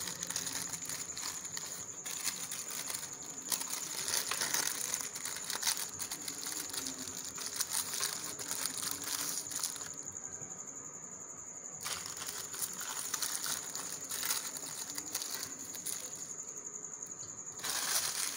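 Greaseproof paper crinkling and rustling as it is folded and rolled by hand around a filled shawarma wrap, with two short pauses in the handling. A steady high whine sits underneath.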